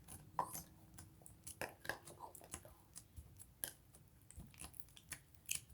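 Hands kneading and squeezing cloud slime, giving faint, irregular sticky crackles and squishes.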